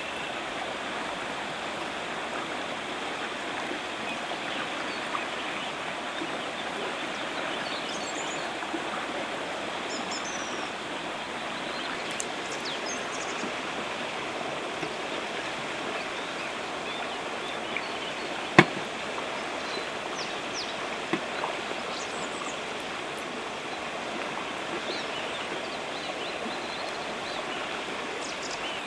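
River water rushing steadily, a constant even noise. A few light ticks sit over it, and one sharp click comes about two-thirds of the way in.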